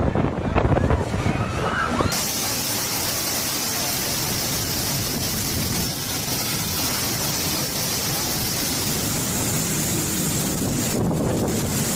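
Storm wind buffeting the microphone in uneven gusts. A couple of seconds in it changes abruptly to a steady, even rushing hiss of wind-driven heavy rain.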